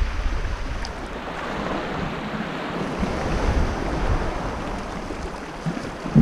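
Small waves washing onto a sandy shore, with wind buffeting the microphone as a low rumble that eases off in the middle and gusts back in at the end.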